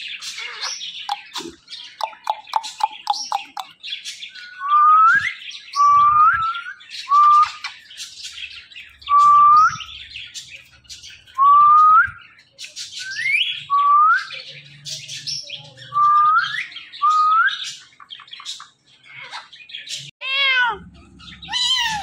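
Indian ringneck parakeet calling: chattering squawks and quick chirps at first, then a string of about ten short rising whistled calls, roughly one a second. A different, wavering call starts near the end.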